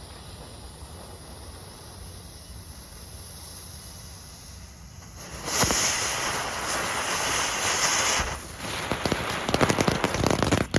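Yellow Duck novelty firework going off about halfway in: a loud hiss of spraying sparks for a few seconds, then a rapid run of crackles near the end.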